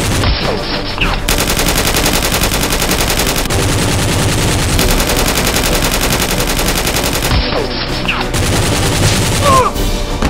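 Rapid automatic gunfire sound effect in two long bursts of about two seconds each, with short falling whistles before and after them.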